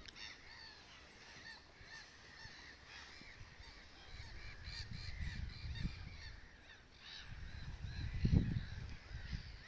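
A flock of birds calling continuously, many short overlapping calls. A low rumble builds in the second half and is loudest about eight seconds in.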